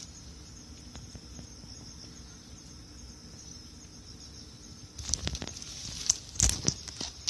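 Steady high chirring of insects. From about five seconds in, a run of close rustles and sharp knocks, loudest near the end.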